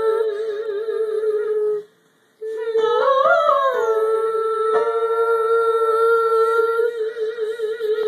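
A woman's vocal warm-up with a dachshund howling along. There are long held sung notes with a slight wobble, a short break about two seconds in, and a rising-then-falling howl-like glide about three seconds in, followed by another long held note.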